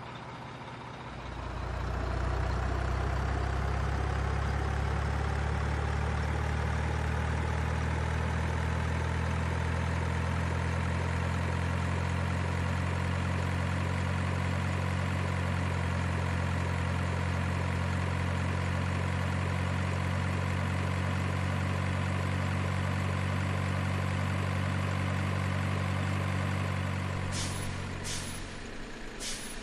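An RC truck's sound module playing a simulated heavy diesel engine. It runs steadily from about a second in, with a faint rising whine over it. It stops near the end, followed by several short sharp air-brake hisses.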